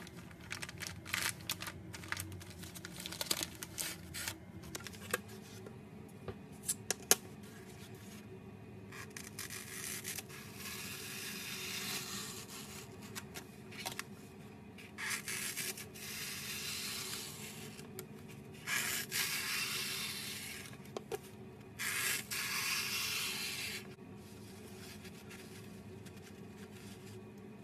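Crinkling and crackling of a plastic sponge-pack wrapper being handled, then a knife sawing through a white melamine foam sponge in four long scraping strokes of two to three seconds each.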